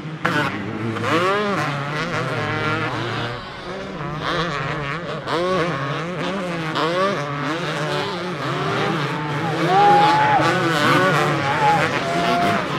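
Two-stroke motocross bike engines revving, several at once, their pitch climbing and dropping again and again. About ten seconds in, one engine holds a high steady note briefly and is the loudest.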